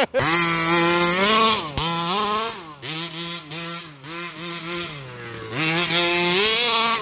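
Rovan 1/5-scale RC buggy's 29cc two-stroke petrol engine revving hard as the throttle is worked, its pitch climbing and dropping. Several quick blips come in the middle and a long high-pitched rev near the end.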